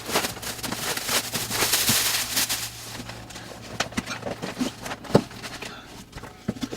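Packing material around a new fridge being pulled and handled: dense crackling and rustling for about three seconds, then scattered knocks and clicks.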